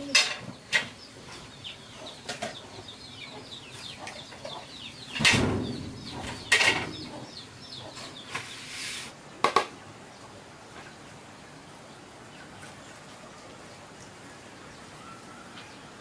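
Chickens with chicks peeping in quick, high, falling notes over the first several seconds. A few sharp knocks and a loud burst of wing flapping come about five seconds in.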